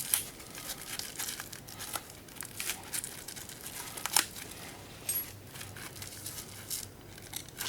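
Irregular clicks, cracks and scrapes of a small plastic-and-metal switch from an old can opener being forced apart, with the sharpest snaps about two and four seconds in.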